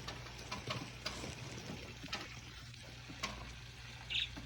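Rain dripping, with scattered sharp drip ticks over a steady low background, and one short high chirp from a pet budgie about four seconds in.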